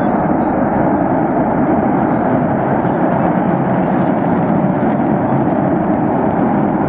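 Natural gas burning at a pipeline fire: one loud, steady, unbroken rushing noise.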